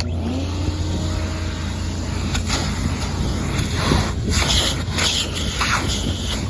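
1993 Mazda Miata's 1.6-litre four-cylinder engine running as the car drives off, with wind and road noise over a low drone; the engine note climbs shortly after the start.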